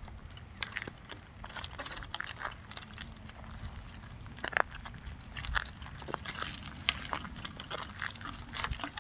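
Irregular rustling and crackling of grass and plant stems as a cat pushes through it, over a low rumble.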